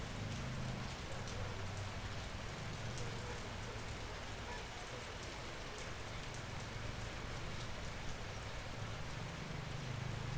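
Natural rain falling steadily under an almond tree: an even hiss with single drops clicking sharply through it, over a low rumble that dips in the middle.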